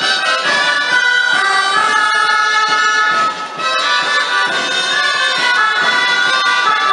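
Gralles, the shrill Catalan folk shawms, playing a traditional dance tune in several voices at once, dipping briefly a little over three seconds in.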